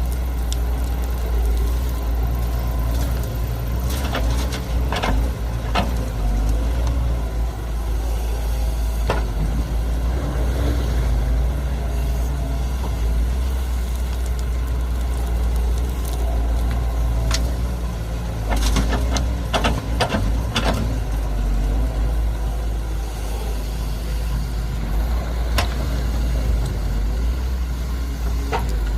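Heavy diesel engines of an excavator and dump trucks running steadily at a low rumble, with scattered sharp knocks and clanks from time to time, one cluster of several a little past halfway.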